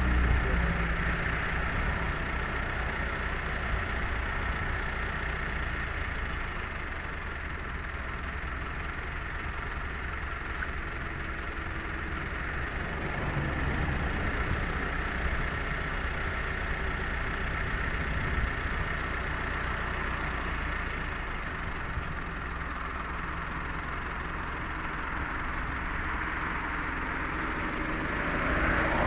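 Steady low engine rumble, like a motor running, with a broad hiss over it. It swells a little about fourteen seconds in and again near the end.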